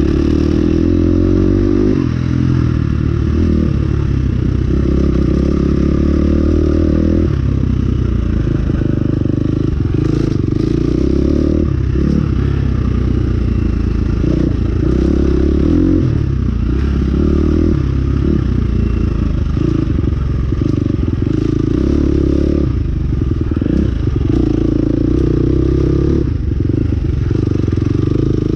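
Small motorbike engine running under way, its note rising and falling as the throttle is worked and eased off.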